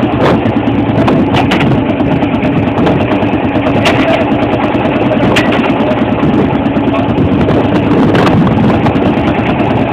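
Field Marshall crawler tractor's single-cylinder two-stroke diesel running steadily at idle, with a few sharp knocks over it.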